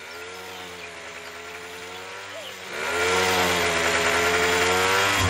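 A chainsaw engine running with a wavering pitch. It is quieter at first, then grows louder from about three seconds in as the saw cuts into a tree trunk.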